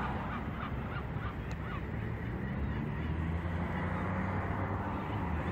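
A low, steady engine hum that grows stronger about halfway through, over a continuous outdoor wash of wind-like noise.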